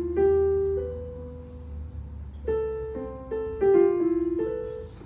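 Electronic keyboard in a piano voice playing a simple melody one note at a time, each note struck and fading away. There are a few notes, a pause of about a second and a half, then a quicker run of notes.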